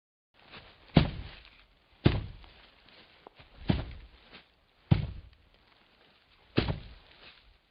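Meme sound-effect clip of five heavy thuds, spaced unevenly about one to one and a half seconds apart, each dying away quickly. A faint hiss lies under the clip, which starts and stops abruptly against digital silence.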